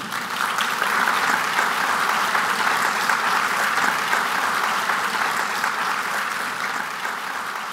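Audience applauding in a hall, swelling quickly at the start, holding steady, then starting to die down near the end.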